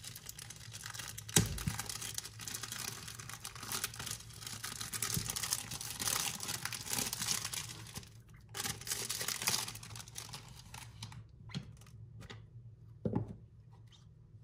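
Clear cellophane wrapping being torn and peeled off a perfume box, crinkling and crackling densely for about eight seconds, with a sharp knock about a second and a half in. The crinkles then thin out to a few scattered rustles and light knocks as the box is handled and opened.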